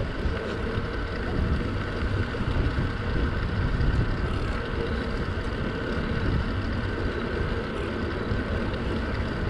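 A vehicle's engine and road noise with a steady low rumble, running evenly and unbroken.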